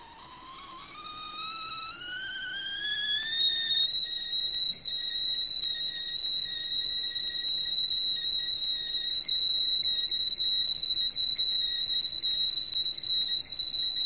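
Stovetop tea kettle whistling as the water comes to the boil. The whistle starts faint and rises in pitch and loudness over the first four seconds, then holds one steady high note.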